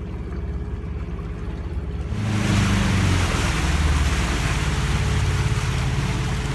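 Motorboat engine running low, then about two seconds in it speeds up and a loud rush of water and wind comes in as the boat gets under way.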